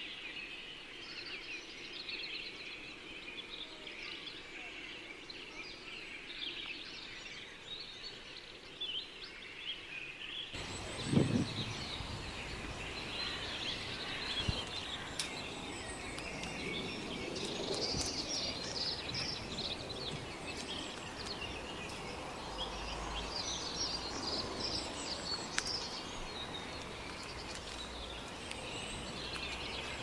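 Many small birds chirping and twittering continuously. About ten seconds in the background changes and a low rumble comes in, with one brief low thump just after.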